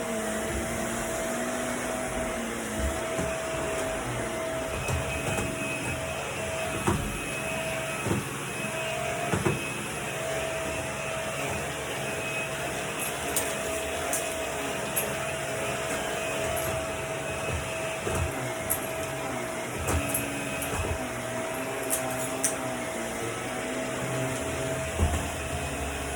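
Vacuum cleaner running steadily, its motor hum holding one pitch, with scattered knocks and clicks as it is pushed about.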